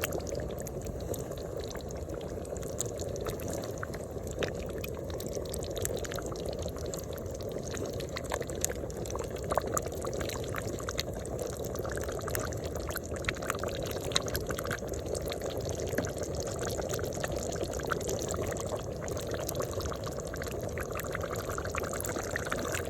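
Pork and baby shrimp cooking in a pan, sizzling and bubbling steadily with scattered pops and crackles.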